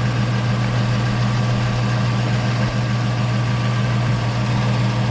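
Infiniti G35 coupe's 3.5-litre V6 idling steadily with the air conditioning switched on and the newly fitted AC compressor running, as the system is recharged with refrigerant.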